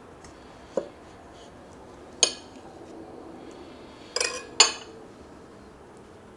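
Cutlery clinking against dishware: a soft knock about a second in, then three sharp clinks with brief ringing, the last two close together.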